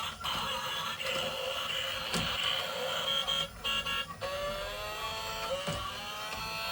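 Toy vehicle's electronic engine sound effect: a stretch of engine-like noise, then from about four seconds in a rising revving tone that repeats.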